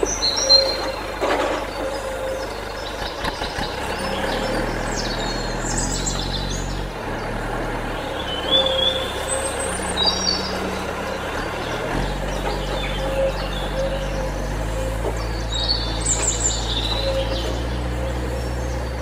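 Small birds chirping now and then over a steady low mechanical hum that shifts in pitch every few seconds.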